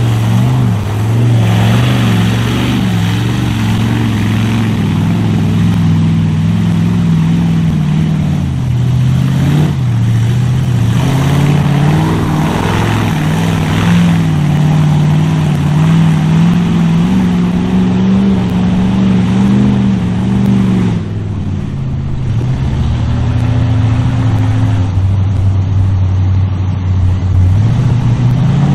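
Mega truck's big engine running and revving through a mud bog, its pitch rising and falling, with bursts of rushing mud and water spray. About two-thirds of the way through, the engine note drops lower and quieter for a couple of seconds.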